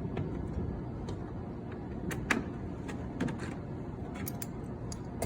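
A handful of short clicks and knocks as the disinfectant sprayer's parts are handled, over a steady background hiss.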